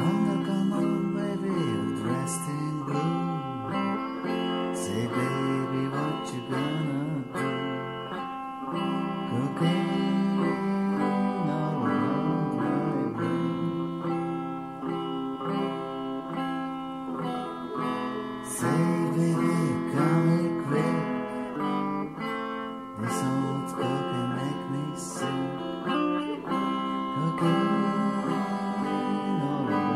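Guitar playing an old blues tune, plucked and strummed, with continuous notes and bends.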